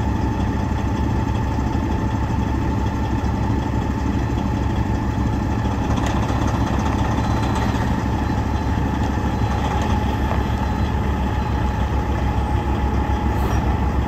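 Detroit Diesel Series 60 12.7-litre six-cylinder diesel of a Kenworth T800 dump truck idling steadily.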